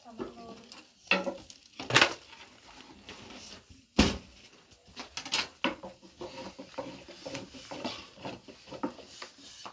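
Thin wooden rolling pins knocking and rolling on low round wooden boards as flatbread dough is rolled out: a run of quick wooden clicks and taps, with sharp knocks about two and four seconds in.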